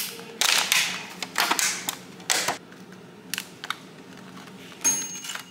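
Thin clear plastic clamshell food container crackling and clicking as it is flexed open and handled, in several short bursts.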